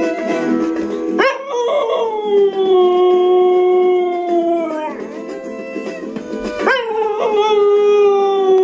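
A yellow Labrador-type dog howling with her head raised. There are two long howls, each sweeping sharply up and then held while slowly sinking in pitch: the first starts about a second in, and the second starts about two-thirds of the way through. Background music plays underneath.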